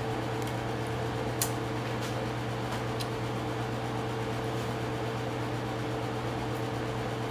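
Steady hum of a running appliance, with a few light clicks of a metal fork, the sharpest about one and a half seconds in.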